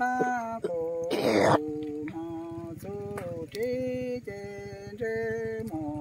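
A woman's voice chanting Hmong verse in long, held notes that step from one pitch to the next. About a second in, a brief loud rasping burst breaks in.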